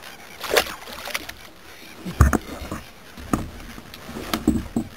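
Water splashing and a handful of separate knocks and bumps in a sit-on kayak, the strongest about two seconds in, as a largemouth bass is let go over the side and the rod is picked up.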